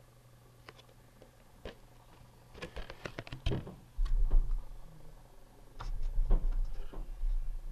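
Glossy cardboard fold-out booklet being unfolded and handled: scattered crinkles and clicks, thickest about three seconds in and again around six seconds. From about four seconds a low rumble of handling noise runs under them.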